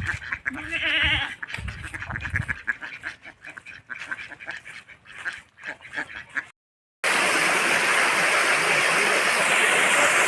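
Repeated short animal calls for about six and a half seconds. The sound then cuts off and, half a second later, the steady rush of a waterfall begins.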